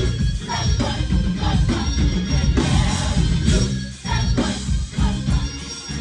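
Live gospel band playing with a steady drum beat and heavy bass.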